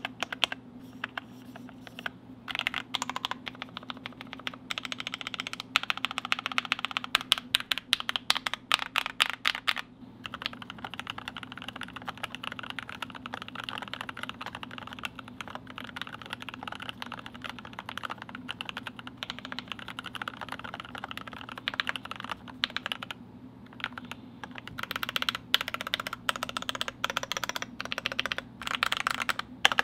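Fast typing on a GMMK Pro mechanical keyboard with lubed Durock L7 linear switches and GPBT keycaps: a dense run of keystrokes, first on a polycarbonate plate with foam and, after a short pause partway through, on a brass plate with foam.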